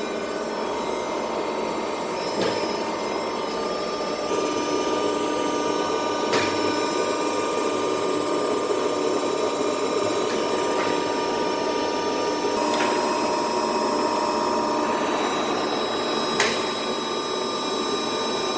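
300-ton CNC hydraulic press brake running: a steady hydraulic pump hum with several fixed whining tones, and a few sharp clicks spread through it.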